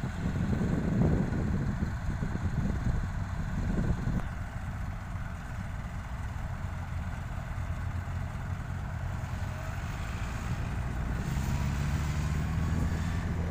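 Kubota DC70 Plus combine harvester's diesel engine running steadily while the machine stands still, a low even hum. A rougher rumble overlays it for about the first four seconds.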